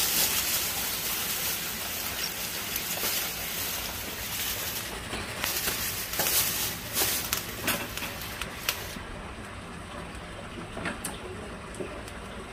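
Lumps of charcoal tipped from a plastic bag onto a clay charcoal stove: a rustling hiss at first, then many sharp clinks and knocks as the pieces tumble together and are settled with metal tongs. It eases off after about nine seconds.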